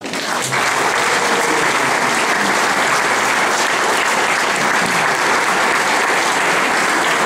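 Audience applauding steadily, a sustained ovation welcoming a speaker to the podium.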